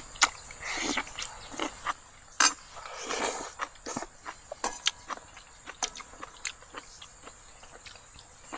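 Eating sounds at a meal of soup: irregular sharp clicks of spoons and chopsticks against bowls, with a couple of brief noisy bites or slurps in the first half.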